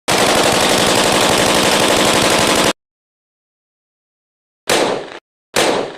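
AK-47 rifle gunfire: a sustained rapid full-auto burst of about two and a half seconds, then a pause, then two short bursts about a second apart, each tailing off.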